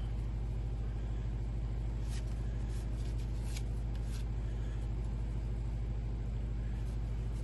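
A steady low hum, with a few faint, brief rustles between about two and four seconds in as trading cards are handled and looked through.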